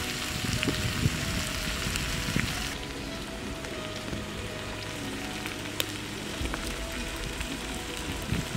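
Wood fire crackling and hissing under a metal pan of heating cooking oil, with scattered sharp pops, over soft background music. The upper hiss drops away abruptly about three seconds in.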